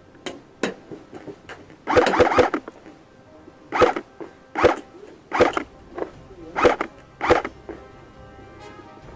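Airsoft rifle fire in short bursts: a quick run of shots about two seconds in, then five more short bursts roughly a second apart. Music plays underneath.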